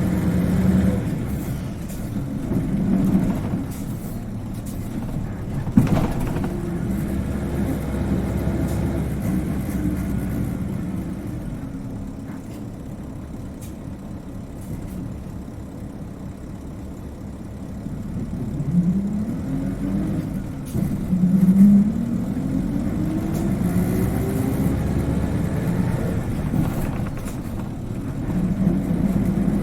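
Isuzu Cubic KC-LV380N city bus engine heard from inside the bus: a low running sound, quieter for a while, then rising in pitch as the bus pulls away and accelerates through its gears, with the high-pitched whine this bus is known for when moving off. A sharp click about six seconds in.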